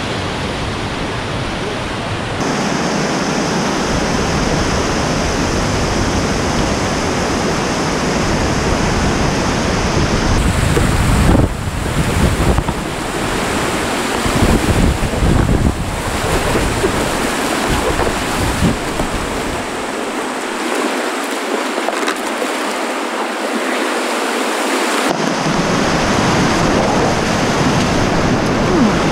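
Whitewater rapids rushing loudly and steadily around an inflatable kayak, with uneven surges of splashing between about a third and halfway through.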